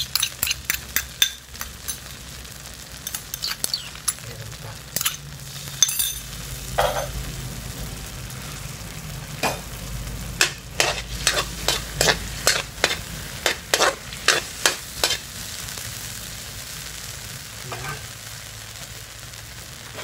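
Onions and sauce sizzling in a large aluminium wok while a utensil stirs them, clacking and scraping against the pan in quick runs of strokes.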